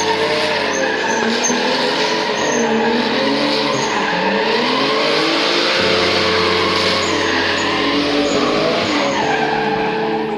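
A drift car sliding under power: the engine revs rise and fall as the tyres squeal and skid through the slide. The sound cuts off abruptly at the very end.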